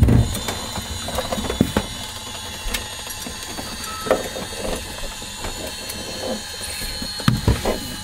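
Scattered clicks, knocks and rustling of people moving about inside a small plane's cabin with the engine shut down, as a headset is hung on its hook by the windshield. A heavier thump comes at the start and a couple more near the end.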